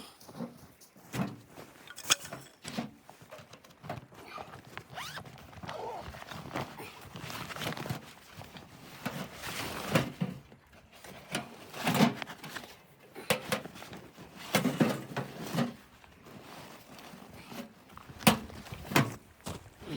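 Irregular knocks, thuds and rustling, a dozen or so sharp strikes at uneven spacing with scraping and rustling between them, as of gear being handled.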